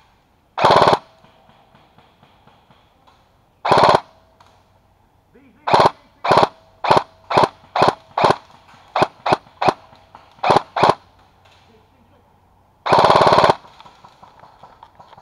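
Airsoft rifle firing close by: a short full-auto burst, another about three seconds later, then about a dozen single shots at roughly two a second, and a longer full-auto burst near the end.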